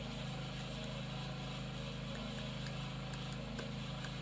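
Steady low mechanical hum, like a motor running in the background, with a few faint clicks.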